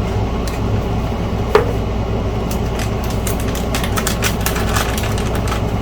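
Small clicks and taps of a circuit board and computer parts being handled, with one sharper tap about a second and a half in and a run of quick clicks in the middle, over a steady background hum.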